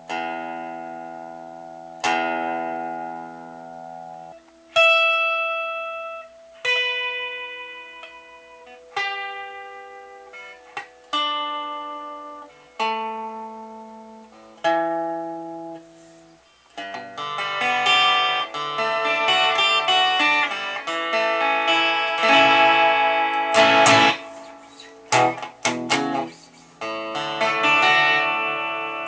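Squier Telecaster Affinity electric guitar played clean through an amplifier: single notes plucked one at a time and left to ring out, then strummed chords over the second half.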